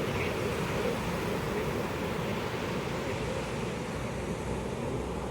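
Pacific Ocean surf washing onto a beach, a steady rushing wash of waves with no single break standing out.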